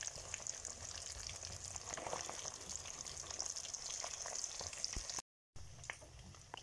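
Pieces of steamed chicken deep-frying in hot oil in a wok: a steady crackling sizzle with small pops. It cuts off abruptly about five seconds in and comes back more quietly.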